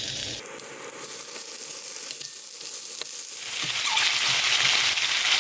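Raw chicken pieces sizzling in hot cooking oil in a wok over high heat. The sizzle gets clearly louder about three and a half seconds in.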